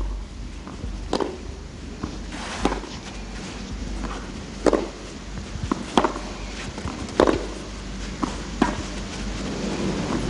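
A tennis rally on a clay court: a ball struck back and forth by rackets, about seven sharp hits spaced one to two seconds apart, with fainter knocks between.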